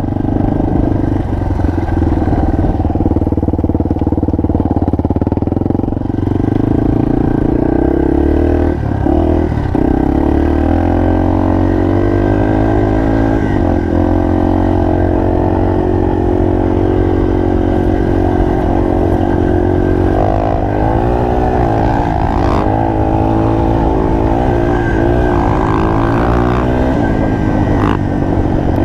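Single-cylinder enduro motorcycle engine running under load while riding, its pitch rising and falling with throttle and gear changes, with a few brief clicks.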